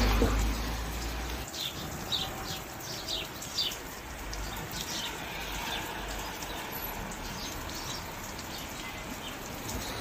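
Steady rain, with a bird chirping a quick series of short notes that each slide down in pitch, from about a second and a half in until about halfway through.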